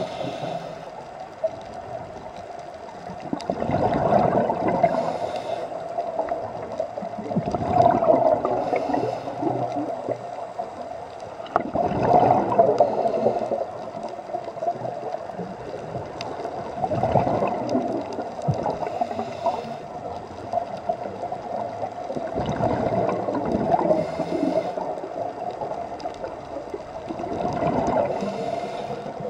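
Scuba regulator breathing heard underwater: exhaled bubbles gurgle out in a swell about every four to five seconds, over a steady hum.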